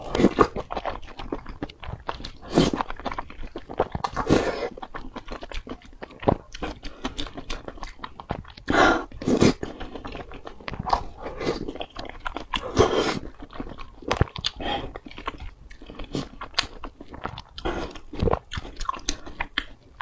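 Close-miked eating: a person biting, chewing and slurping spicy sauced food with chopsticks, in uneven wet, crunchy bursts and several louder bites or slurps along the way.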